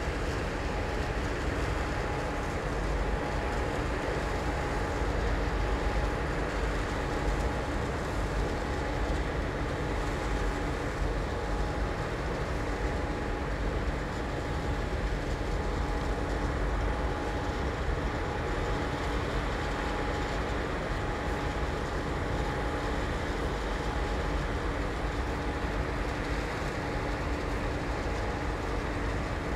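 Heavy industrial machinery running with a steady drone and a constant hum.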